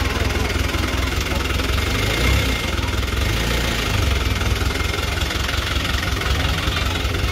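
Mud-covered off-road 4x4's engine running steadily at idle, a continuous low rumble.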